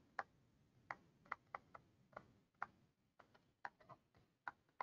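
Faint, irregular light ticks of a stylus pen tapping and tracing on a tablet surface during handwriting, about a dozen in a few seconds.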